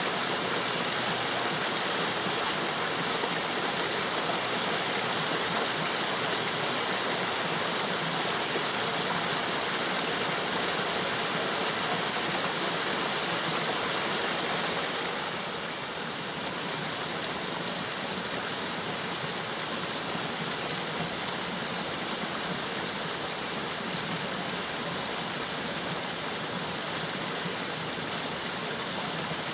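Steady rush of flowing water from a mill brook spilling over a small cascade. The level drops slightly about halfway through and then holds steady.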